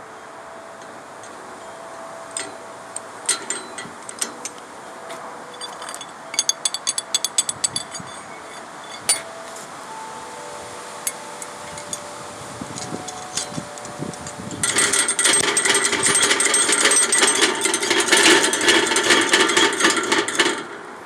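Black steel gate and its latch clinking and knocking with short metallic rings, a quick run of taps about six seconds in, then about fifteen seconds in a loud rapid metal rattling for about six seconds that stops abruptly.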